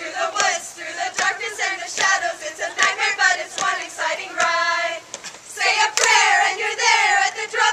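A group of voices singing and calling out together, with a held wavering note about halfway through and long falling wails near the end, over a few scattered claps.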